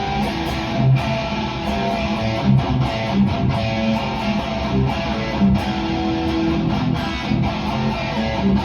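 Instrumental passage of a rock song between sung lines: strummed electric guitar over a steady drum beat, with no vocals.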